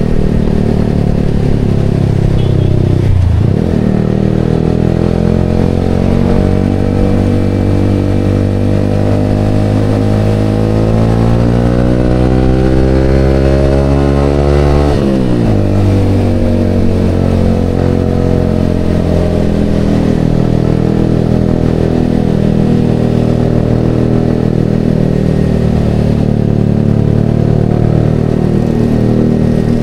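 Yamaha XSR motorcycle engine running through a Vmax aftermarket canister exhaust while riding. There is a brief dip in pitch about three seconds in, then a long steady climb in pitch as it accelerates for about ten seconds, a sudden drop about halfway through, and after that it runs at a fairly even pitch.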